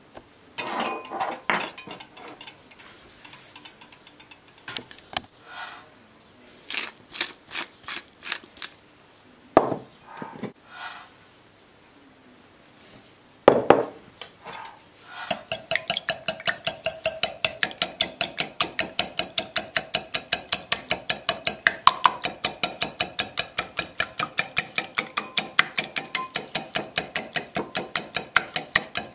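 Wire whisk beating eggs in a glass bowl, the wires clinking against the glass in a fast, steady rhythm of about five strokes a second. The whisking starts about halfway in, after scattered clicks and taps of kitchen handling.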